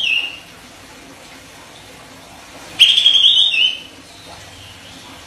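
Sooty-headed bulbul singing: the end of one sharp, whistled phrase right at the start, then another short, sharp phrase of quick stepped notes lasting about a second, a little under three seconds in.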